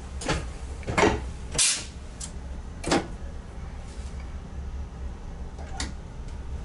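Steady low hum of an ICM electric train running, heard inside the driver's cab, with a series of sharp clicks and knocks, the loudest about one and a half seconds in.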